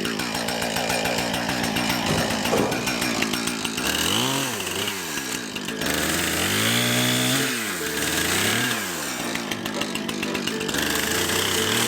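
Husqvarna Rancher 460 two-stroke chainsaw running, its engine pitch rising and falling several times as it is throttled up and down.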